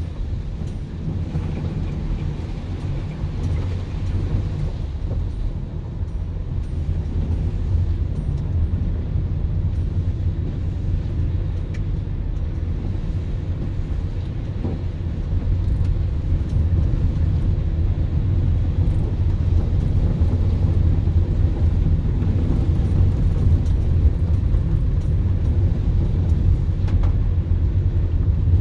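Car driving on a wet road, heard from inside the cabin: a steady low rumble of engine and tyres that grows a little louder about halfway through.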